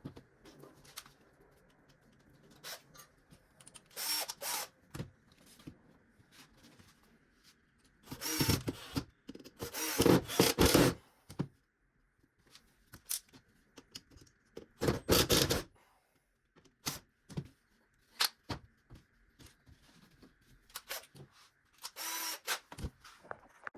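Intermittent workshop sounds: a small power tool running in short bursts of about a second, between light clicks and knocks of wooden pieces.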